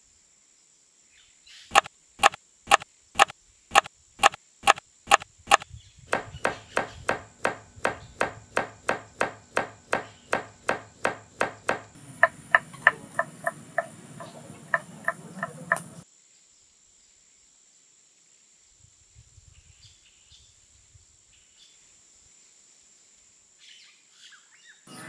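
Large kitchen knife chopping vegetables on a wooden board: sharp, evenly spaced strikes about two a second, then a faster run of about three a second that stops about two-thirds of the way through. A faint steady high-pitched hum runs underneath.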